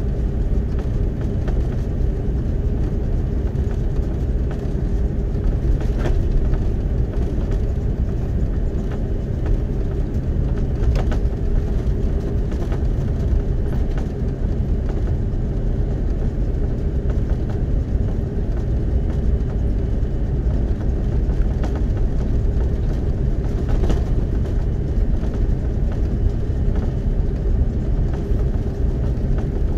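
Cabin noise inside an Airbus A330-300 airliner: a steady low rumble with a faint hum, and a few light knocks about six, eleven and twenty-four seconds in.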